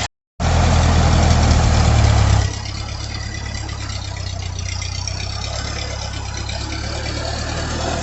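Ford 8N tractor's four-cylinder engine running steadily at a low drone. It is louder for about the first two seconds, then drops to a quieter steady run.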